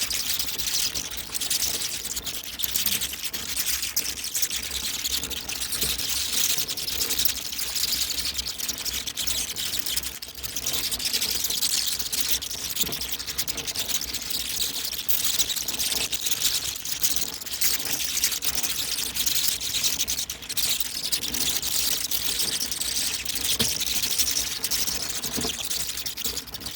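Many bats chittering and clicking in a dense, continuous, high-pitched chatter.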